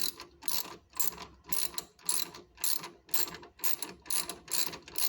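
Hand ratchet wrench clicking through repeated short swings, about two strokes a second, as a bolt is driven in.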